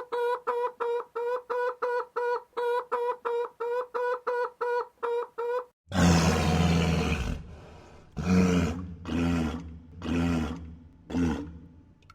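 An animal's fast, evenly pulsed pitched call, about three to four notes a second. After an abrupt change comes a different animal's deep roar, followed by four shorter roars.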